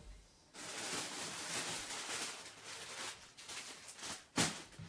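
Rustling of clothes and plastic packaging being handled, starting about half a second in, with one sharp knock near the end.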